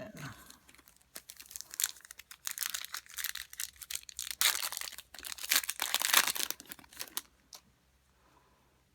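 Foil trading-card pack wrapper being torn open and crinkled, a dense crackling rustle that stops about seven seconds in.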